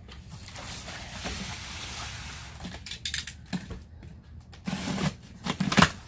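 Box cutter slitting the packing tape on a cardboard box: one long scraping stroke lasting a couple of seconds, then shorter cuts, scrapes and knocks against the cardboard.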